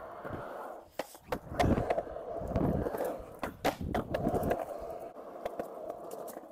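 Skateboard wheels rolling, with a louder rumbling stretch in the first half and several sharp clacks of the board popping and landing, about a second in and again near the middle.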